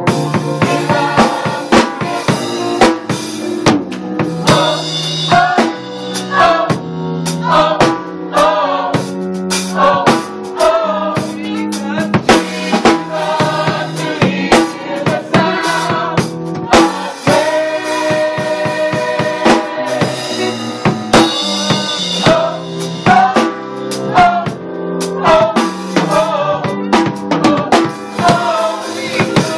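Gospel choir singing with a live band, a drum kit keeping a steady beat with kick and snare under bass notes.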